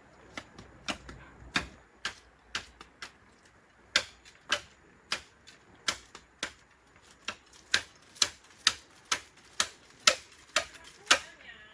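A run of sharp clicks, irregularly spaced at roughly two a second, some much louder than others.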